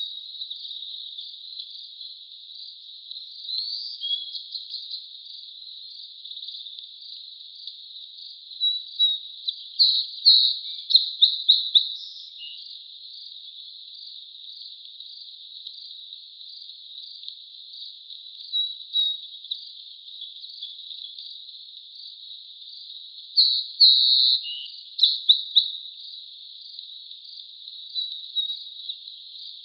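A steady high-pitched chirping chorus of insects, with louder runs of rapid chirps about ten seconds in and again around twenty-four seconds.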